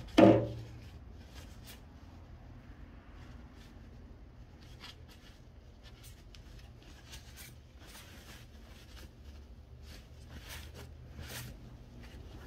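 A single knock at the start, then faint rubbing and light scraping as a paper towel and a thin blade are worked over a steel transmission separator plate to clean off dirt, with small scattered clicks.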